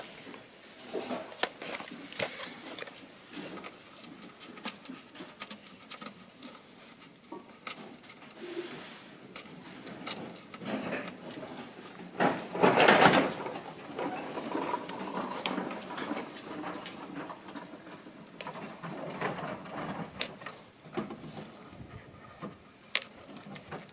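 Hands handling car-stereo wiring harnesses and plastic connectors: scattered clicks, rustles and light knocks, with a louder rustling scrape about thirteen seconds in.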